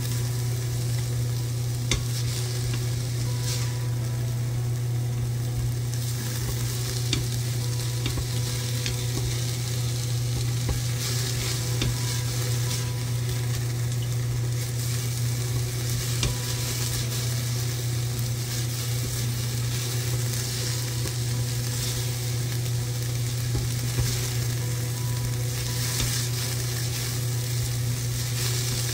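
Diced onions sizzling in the stainless inner pot of an Instant Pot on its sauté setting, stirred and scraped with a silicone spatula, with scattered light taps; the onions are at the stage of turning translucent. A steady low hum sits under it all.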